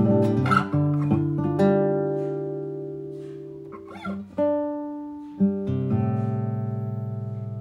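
Slow acoustic guitar music: plucked notes and chords struck one after another and left to ring out and fade.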